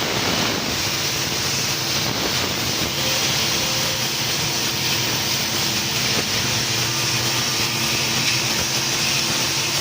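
1500 W fiber laser CNC cutting machine running: a steady hiss with a low hum of several steady tones that comes in about a second in.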